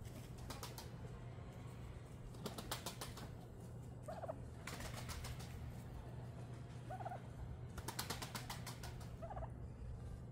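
Domestic white turkeys gobbling in short rattling bursts, four or five times, with a few soft short calls from the flock between them. Gobbling is a tom's call, which fits the owner's suspicion that both strutting turkeys are males.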